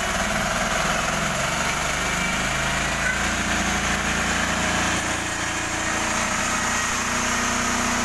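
Engine of a portable band sawmill running steadily while the saw head travels along a log, sawing it into rafters in one pass.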